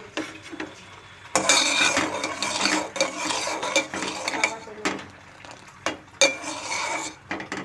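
A spoon stirring and scraping around a pot of milk being boiled down and thickened, with clinks against the pot. It starts about a second and a half in and goes on with a few short breaks.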